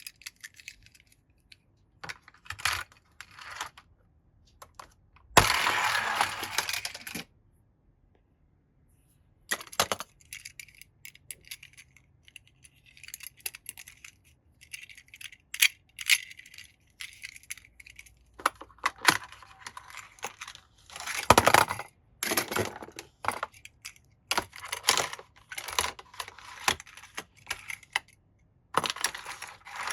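Toy cars being handled, clicking and clinking against each other and hard surfaces, with bursts of packaging rustling or tearing, the longest a few seconds after the start.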